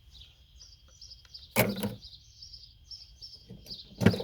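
Two heavy knocks, about a second and a half in and again near the end, as a hammer strikes a scrap motherboard to knock off its RAM slots. Small birds chirp steadily behind.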